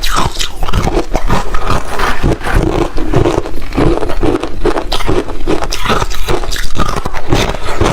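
Ice being bitten and chewed close to the microphone: a continuous run of loud, crackly crunches, many to the second.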